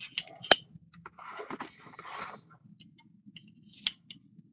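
A few sharp clicks and taps, with a stretch of crinkling and rustling in the middle, as a sealed box of trading cards and its wrapping are opened and handled.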